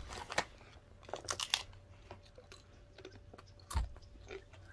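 Paqui Haunted Ghost Pepper tortilla chips crunching as a person bites into and chews them: a scatter of short crisp crackles, with one louder crack near the end.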